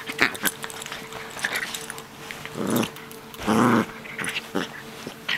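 Small Maltese dog growling while tussling with a person's hand in play: two short growls about a second apart, the second louder and longer, with light clicks and scuffles around them.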